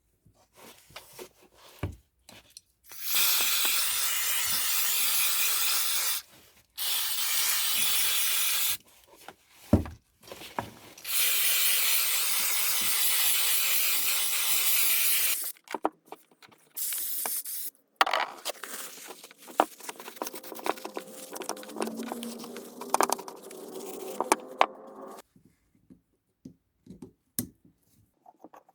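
Carburettor cleaner spraying from an aerosol can: three long, steady hisses of about three, two and four seconds. After them comes quieter rattling and clicking of parts being handled.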